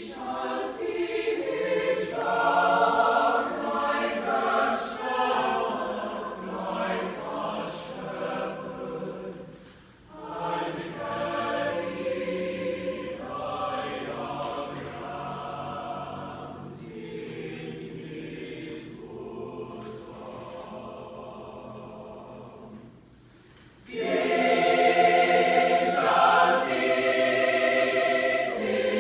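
A choir singing in phrases, with brief breaks about ten seconds in and again about five seconds before the end; the singing comes back louder for the last few seconds.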